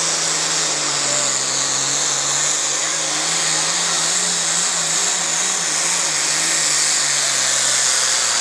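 John Deere pulling tractor's diesel engine running flat out under load as it drags a pulling sled, with a loud high hiss over the engine note. The engine note sags slightly near the end as the pull finishes.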